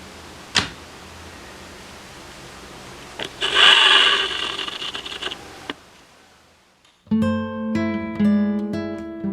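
Handling noise: a click about half a second in, then a loud rustling noise for about two seconds around the middle, ending in a click. About seven seconds in, background acoustic guitar music starts with plucked notes.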